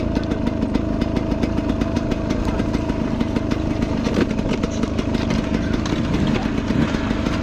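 Enduro motorcycle engine running steadily at an even speed, with no revving.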